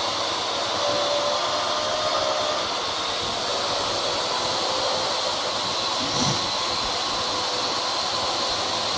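Parrot AR-Drone quadcopter hovering, its four electric rotors giving a steady whirring hiss with faint steady whine tones.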